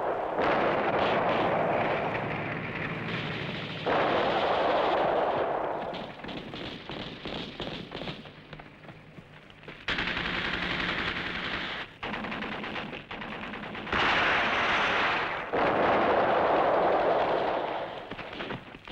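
Battle sound effects of sustained automatic gunfire: machine guns rattling in several loud stretches of a second or two, with quieter bursts of rapid shots between them.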